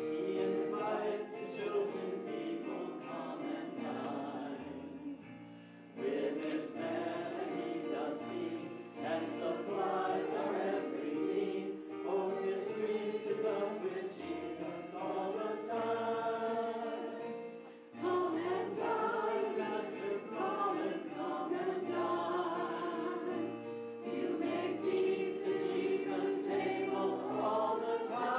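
A church congregation singing a hymn together with accompaniment, in phrases with short breaks between them.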